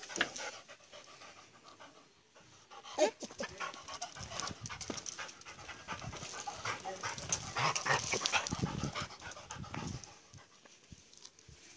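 A dog panting close to the microphone, in quick rasping breaths, with small handling clicks and one sharp knock about three seconds in.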